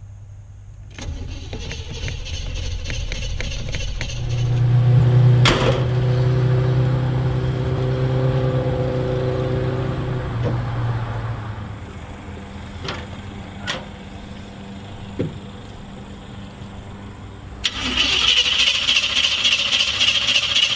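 An old car's starter cranks the engine in a quick even rhythm. About four seconds in the engine catches and runs for several seconds, then dies away, leaving a few sharp clicks. Near the end the starter cranks it again.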